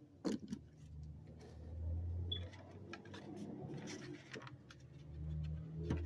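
Handling noise: scattered clicks and taps of objects being moved about, with a cluster of sharp clicks just after the start, over a low steady hum.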